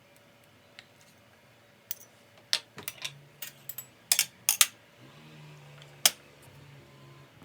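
Small hard objects clicking and clinking as they are handled, about a dozen sharp taps over a few seconds, with a low steady hum joining about five seconds in.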